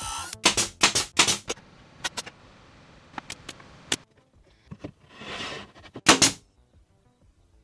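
Pneumatic nail gun firing into a plywood cabinet: a quick run of sharp shots in the first second and a half, a few lighter clicks, then two loud shots close together about six seconds in.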